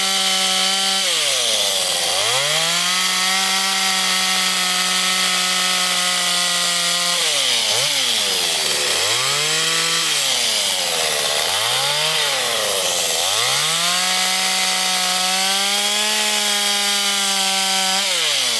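Chainsaw running at high revs while carving wood, with a hiss of the chain cutting. Its engine pitch holds steady for stretches and several times drops sharply and climbs back, mostly in the middle.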